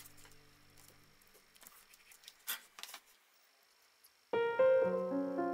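Background music. A low held tone fades out in the first second, a few light clicks follow, and a tune of short notes starts suddenly about four seconds in.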